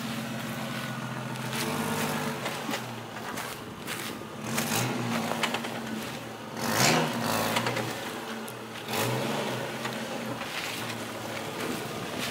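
Jeep Cherokee engine pulling steadily at low speed as the truck crawls up a rocky trail, its pitch rising a little now and then. Several louder bursts of noise break in as the tyres climb over rocks, the loudest about seven seconds in.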